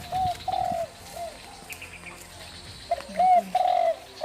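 Spotted dove (tekukur) cooing: two phrases of three arched coos each, the second phrase louder, and one more coo right at the end. Faint chirps of small birds in between.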